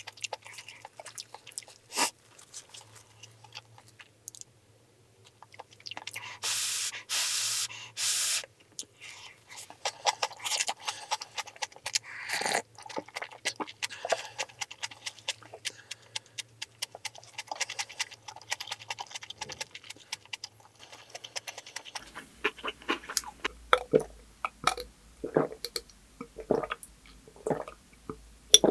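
Close-miked eating sounds of a person chewing rice and kimchi, with many short wet clicks and crunches and the tap of utensils. About seven seconds in come three short, loud bursts of hiss.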